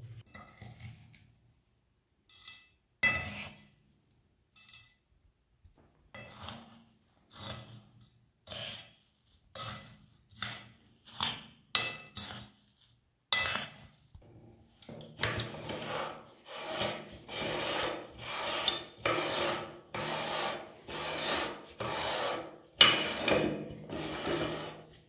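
A spoon scraping through ground, powdered candy on a plastic plate, at first in separate strokes about once a second. From about halfway the scraping turns faster and almost continuous as metal meat-grinder parts are worked loose by hand.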